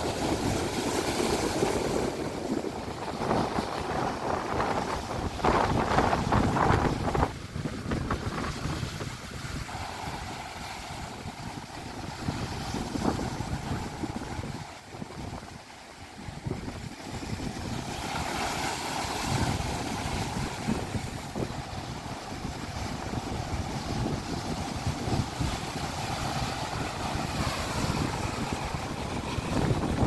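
Sea waves surging and breaking over a rocky shore, a continuous wash of surf that swells and ebbs, loudest in the first several seconds and dropping briefly about halfway. Wind buffets the microphone.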